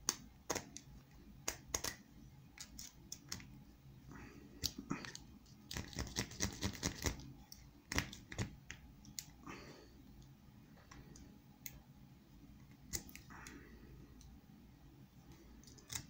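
Small metal clicks and scrapes of a ball pick being worked in the keyway of an old 30 mm Bell padlock, with a quick flurry of clicks about six seconds in.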